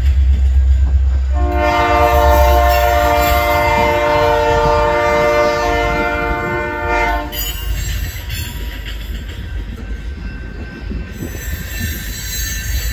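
Diesel freight locomotives' horn sounding one long multi-note blast for about six seconds as they approach a grade crossing, over the deep rumble of the engines. After the horn stops, the train rolls on past with rail and wheel noise.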